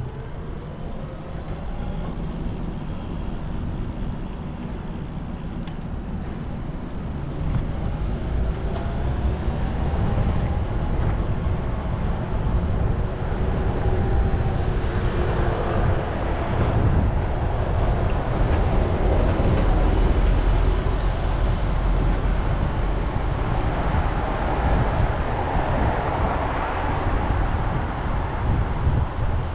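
Wind rumbling on the microphone and road noise of a Brompton folding bicycle riding along, with motor traffic passing; the noise grows louder about a quarter of the way in and again around halfway.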